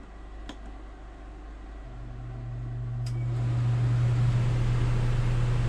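Propane furnace's blower motor starting up about two seconds in: a steady low hum that builds over a couple of seconds, then runs evenly. A few faint clicks come before it.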